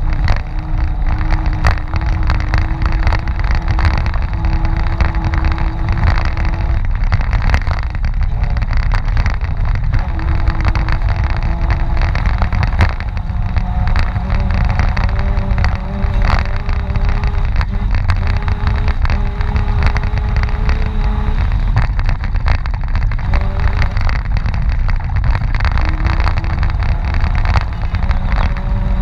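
Mitsubishi Pajero 4x4 driving hard off-road through snow: the engine runs loudly at changing revs, its pitch holding and then stepping up or down several times, over a heavy rumble with frequent knocks and rattles from the vehicle bouncing over rough ground.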